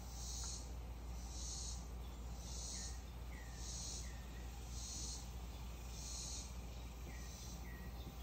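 Insects calling outdoors in a high, even pulse about once a second, with a few short falling chirps now and then.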